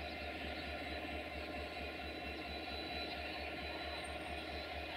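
Locomotive standing and running steadily: a constant mechanical drone with a low throb about five times a second.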